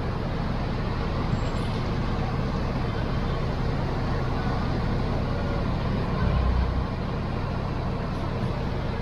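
Steady road traffic noise, with a brief louder low rumble a little after six seconds in.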